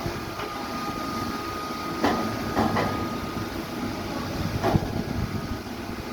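Heavy machinery running steadily, with sharp knocks about two seconds in, twice more shortly after, and once near the end.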